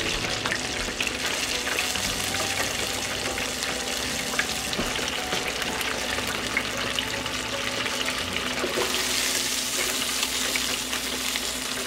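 Whole cornmeal-coated croaker fish deep-frying in hot oil at 375 degrees in an electric deep fryer: a steady, dense crackling sizzle of bubbling oil. Near the end the sizzle changes as the wire fry basket is lifted out of the oil.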